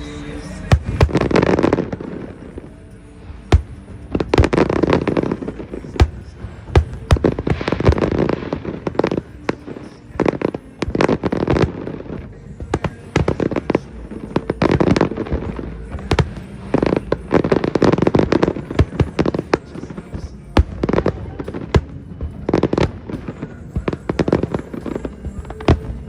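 Aerial fireworks display going off: a dense run of sharp bangs and crackles that swells in loud waves every few seconds.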